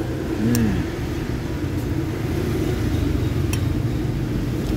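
Steady low rumble of a motor vehicle engine running, with a few light clinks of a metal spoon against a ceramic plate.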